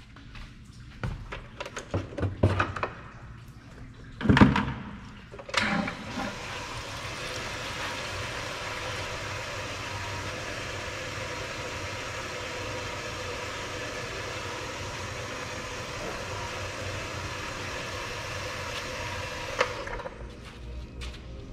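Water from a hose pouring steadily into a plastic bucket, filling a soapy car-wash bucket; the flow stops abruptly near the end. Before the water starts there are a few knocks and clunks of the bucket and hose being handled.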